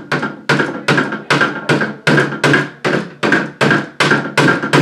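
A small mallet tapping steadily on a metal pin punch, about three strikes a second, each with a short metallic ring, driving a mekugi peg out of a katana's handle (tsuka).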